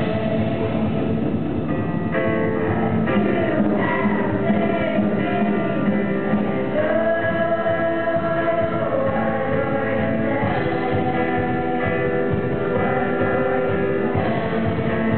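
A youth praise team singing a worship song together as a group, backed by a live band with electric and acoustic guitars and drums.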